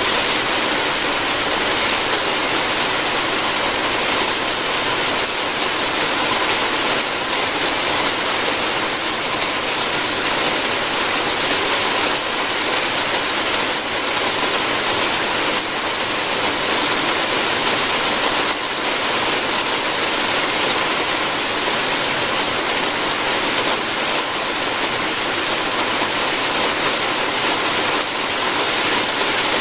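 Steady rain falling on a roof, a dense, even hiss with no let-up.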